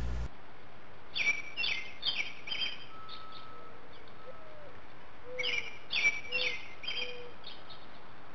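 Backyard bird calling: two runs of four or five short, rapid calls, one starting about a second in and another about halfway through.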